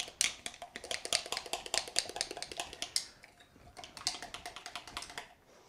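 A spatula scraping and tapping quickly around the inside of a clear cup, a rapid run of clicks and scrapes as the thick homemade gesso is scraped out. It stops shortly before the end.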